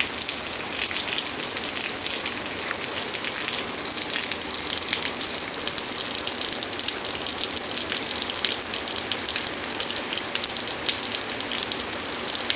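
Steady rain shower: an even hiss with many sharp hits of single drops landing close by.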